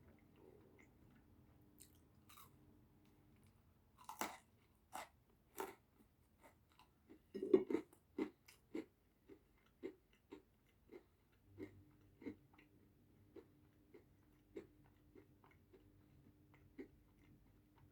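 Someone chewing pizza close to the microphone: a few crunchy bites about four seconds in, the loudest about halfway, then steady rhythmic chewing with mouth clicks a little under two a second, growing fainter toward the end.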